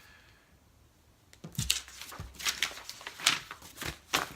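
Deer antlers rattled together to mimic two whitetail bucks fighting, a buck-calling technique: after a short quiet, a quick irregular run of sharp clacks and knocks.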